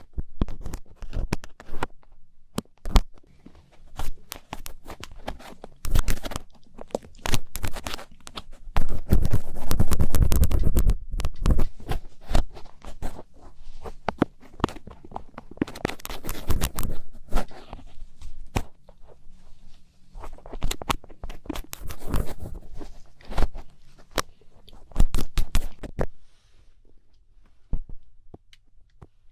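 Thin ear pick scraping and scratching inside an ear, heard very close, with dense crackling clicks and rough rubbing strokes. The scratching dies away to near quiet toward the end.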